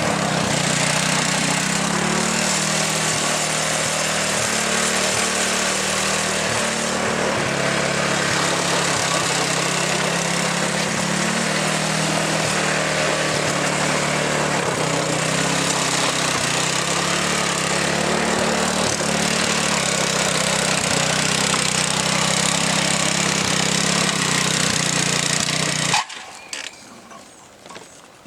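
Earthquake garden tiller's gasoline engine running steadily as it works the soil, its pitch shifting up and down slightly. The sound cuts off suddenly near the end.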